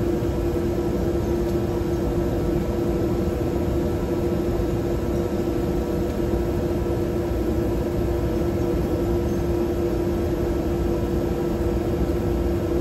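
A steady machine hum: one constant pitch over an even rushing noise, unchanging throughout.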